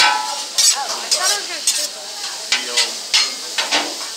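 Teppanyaki chef's steel spatula clinking and scraping on a hot hibachi flat-top griddle, with repeated sharp metal strikes over a steady sizzle of food cooking.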